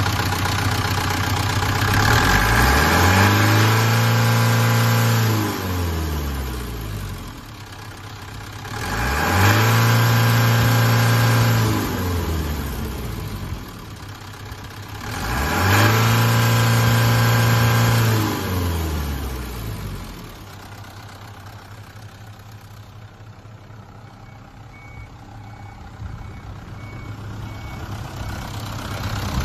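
Mitsubishi Canter's 4D33 four-cylinder diesel engine revved three times, each time rising, held for about two seconds and falling back. It then settles into a steady idle for the last third.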